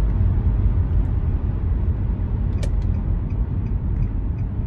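Road and engine noise inside a moving car's cabin: a steady low rumble, with one sharp click a little past halfway and faint regular ticking after it.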